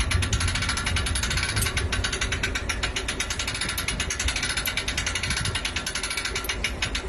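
Rapid, even mechanical clicking, ratchet-like, with a low rumble beneath it.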